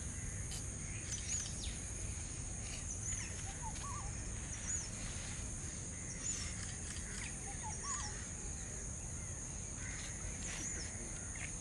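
Outdoor ambience: a steady high-pitched drone with a short chirp repeated about once a second and a few bird calls, over a low rumble.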